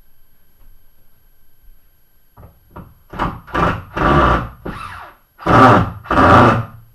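Power drill run in about six short bursts on a screw being backed out of the wall.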